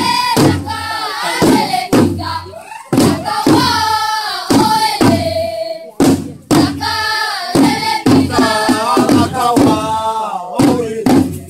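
Group of voices singing a maku-maku dance song in unison, the melody rising and falling, with a sharp clap cutting in now and then.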